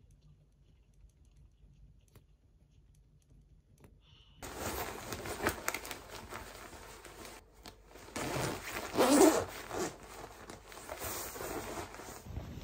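Near silence for the first few seconds, then the rustle and swish of a nylon puffer vest being pulled on over a hoodie and zipped up, loudest a little past the middle.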